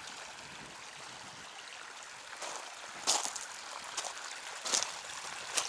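A shallow creek trickling and babbling over rocks, with a few short sharp scuffs about once a second in the second half.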